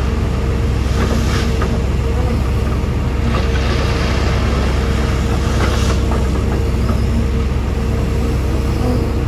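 Heavy diesel earthmoving machinery running steadily, a deep even engine rumble with a steady drone over it. Brief rushes of hiss rise over the engine about three times.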